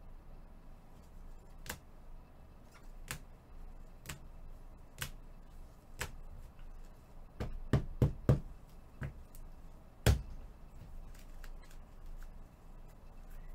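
Rigid plastic card holders clicking and knocking as they are handled and set down on a table: sharp clicks about once a second, a quick run of four louder knocks around the middle, and one more loud knock a little later.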